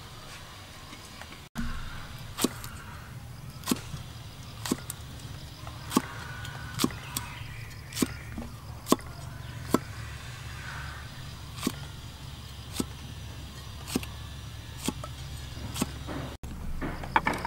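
Cleaver slicing fresh red chilies on a round wooden chopping board: single sharp knocks of the blade on the wood, about one a second, over a steady low hum.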